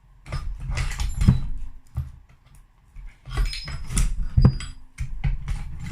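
Knocks and metallic rattles from work on a two-stroke motorcycle engine's split crankcases, in three clusters of short hits and clatter.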